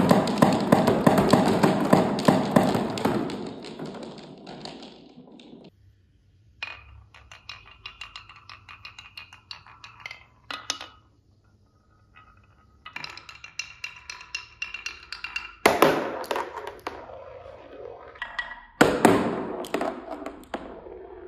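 Glass marbles rolling and clattering down a wooden HABA marble run. A dense clatter of many marbles fades out over the first few seconds. Then come runs of rapid clicks as marbles roll and knock along the track, and two sharper knocks about 16 and 19 seconds in.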